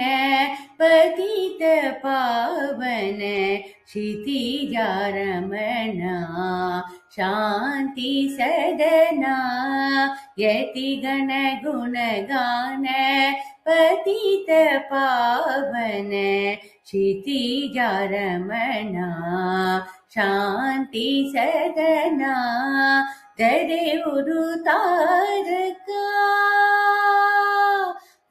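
A woman singing solo and unaccompanied in a Carnatic-style melody. Her phrases bend and glide in pitch, break off for breaths, and end near the close on one long held note.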